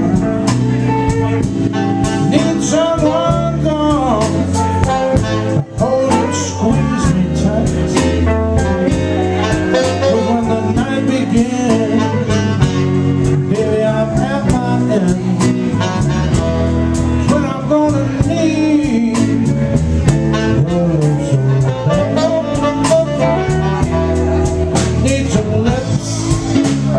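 A live blues band playing a slow number, with electric bass, electric guitar and saxophone under a wavering lead melody line.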